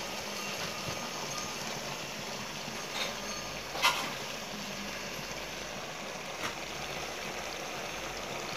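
Steady background hiss with three light clicks spread through it, the loudest about four seconds in.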